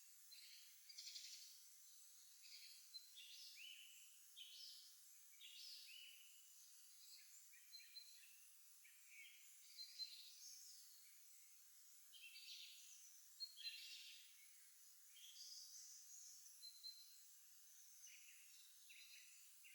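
Faint chorus of small songbirds singing in spring, many short chirps and trills overlapping and following one another without pause, with the odd brief high whistle.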